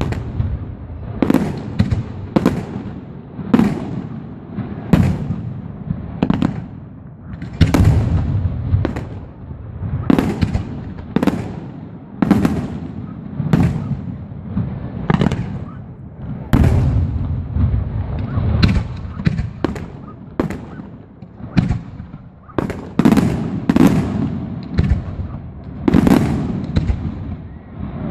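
Aerial fireworks bursting in a steady barrage, a sharp bang roughly every second, each trailing off into a low rumble. The bangs come closer together a little past the middle.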